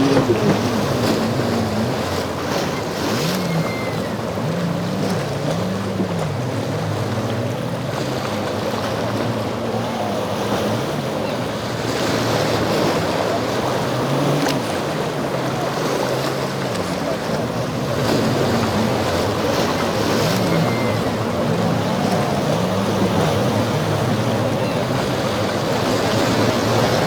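Motorboat engines revving up and down again and again as the boats climb and drop over rough inlet waves, with the rush of surf and wind noise on the microphone.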